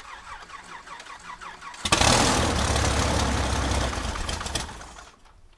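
Six-cylinder Lycoming AEIO-540 aircraft engine on a cold start: the starter cranks it with a pulse about six times a second, then it fires loudly about two seconds in, runs for about three seconds and fades out.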